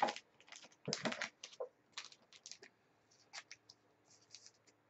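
Light, irregular clicks and taps of hockey trading cards being handled between the fingers. They come thick in the first few seconds, then sparser.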